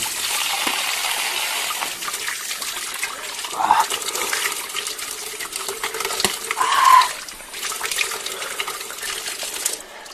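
Water running and splashing, with many small clicks through it and two short pitched sounds about four and seven seconds in.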